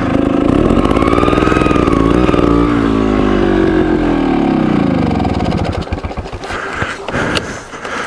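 Beta trials motorcycle engine running, rising in pitch briefly and then winding steadily down until it stops about five and a half seconds in. A few light clicks follow.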